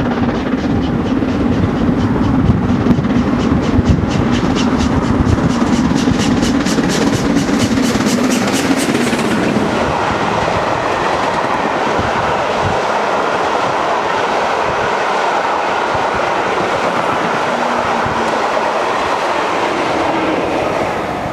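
The LMS Princess Coronation Class steam locomotive 46233 Duchess of Sutherland passes at speed with a fast rhythmic beat for the first half. Its coaches then roll by on the rails in a steady rush that fades as the train clears, near the end.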